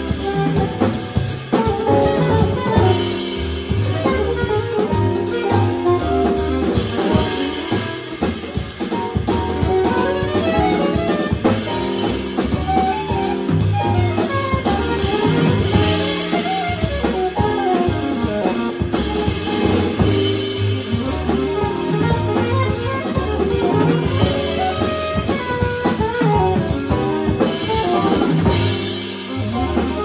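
Live jazz quartet playing: a saxophone plays a moving melodic line over piano, upright bass and drum kit.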